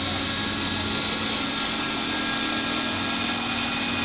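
Radio-controlled model helicopter running on the ground, its rotor spinning up: a steady high whine that rises slowly in pitch as the rotor gains speed.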